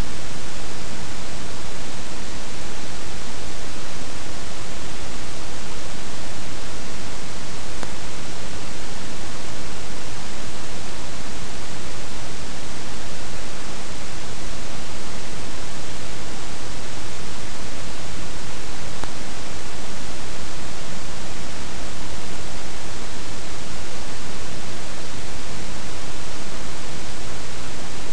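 Loud, steady hiss of static that does not change, covering everything else; no eagle calls or other distinct sounds stand out.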